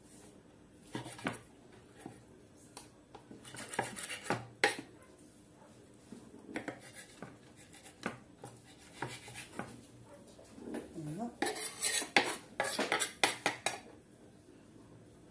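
Scattered clicks, knocks and clinks of kitchen handling as whiting is cut up on a wooden board and the pieces are put into a glass mini-chopper bowl, with a busier run of knocks near the end.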